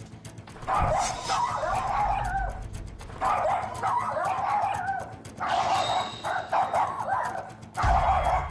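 Small bichon frises barking rapidly in overlapping volleys, starting about a second in with short breaks between volleys. One dog keeps barking and the other two bark along with it.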